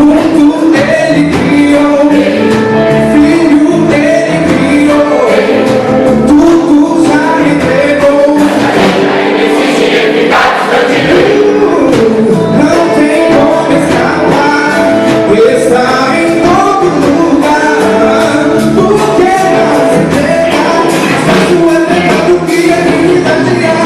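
Gospel choir singing in full voice over instrumental accompaniment.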